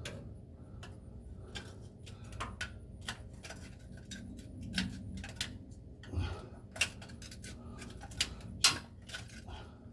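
Irregular light clicks and clinks of metal from hands fitting the new oil filter and handling tools as it is screwed on hand tight, with one sharper click near the end.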